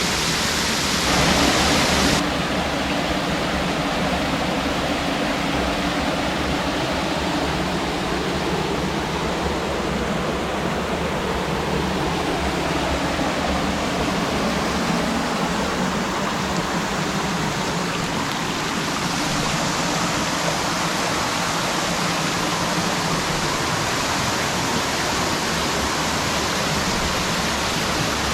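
Rocky stream rushing steadily over rocks, a loud constant water rush, briefly louder about a second in.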